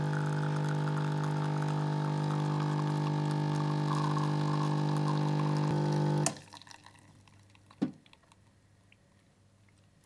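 Ambiano espresso machine's pump humming steadily while a two-cup shot pours into the cup, then cutting off suddenly about six seconds in as the programmed volumetric dose ends. A faint knock follows a little later.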